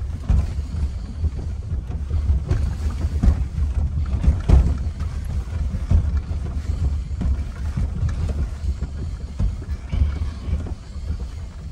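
Low, steady rumble inside the cabin of a 2021 Range Rover Velar creeping along a rough off-road track, with frequent irregular knocks and jolts from the tyres and suspension going over bumps.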